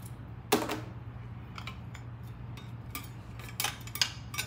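Metal clicks and clinks from handling a compact circular saw while fitting its blade, with one sharp click about half a second in and a flurry of lighter clinks toward the end.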